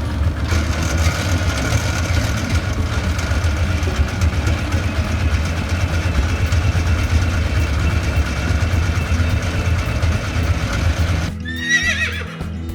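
Horse neighing over a loud, steady low rumble. About eleven seconds in it cuts abruptly to a hen clucking over background music.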